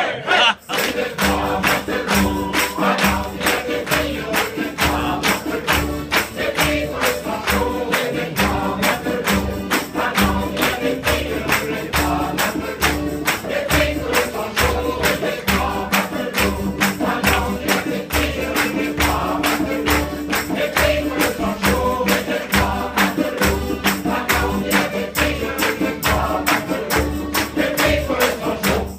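Amateur mixed choir singing a lively song together while hands clap a steady beat in time.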